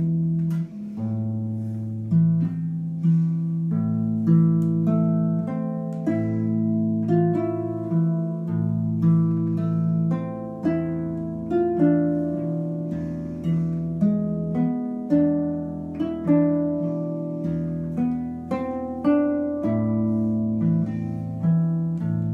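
Solo harp playing a slow, gentle piece: plucked notes about once a second, each left ringing, over sustained low bass notes.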